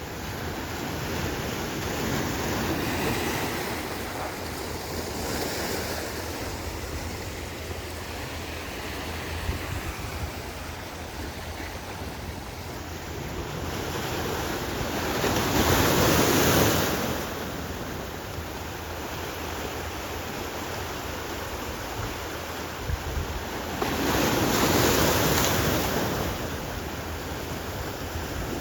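Ocean surf: a continuous rush of waves, with two big waves breaking loudly, one about halfway through and another near the end, over a steady low rumble.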